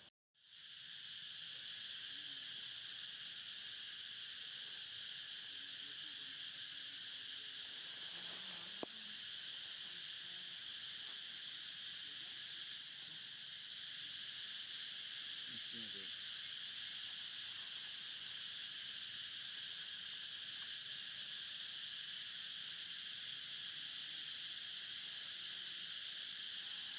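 Steady chorus of forest insects, a dense high buzz that holds without a break, with a single faint click about nine seconds in.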